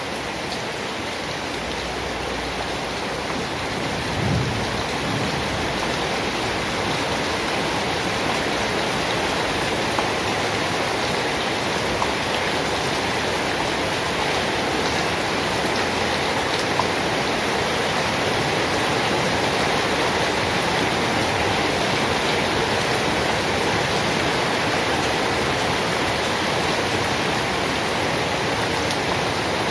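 Steady rain, a dense even hiss, with a low rumble of thunder about four seconds in.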